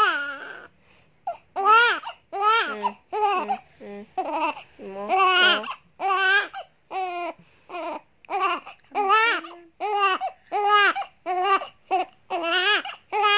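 Newborn baby crying in a string of short, high-pitched wails, about one and a half a second, each rising and falling in pitch, with a brief pause about a second in.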